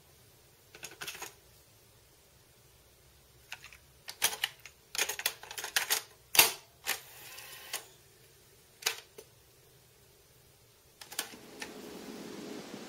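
Irregular light taps and clicks on a phone touchscreen while drawing, in small clusters. Piano music comes in near the end.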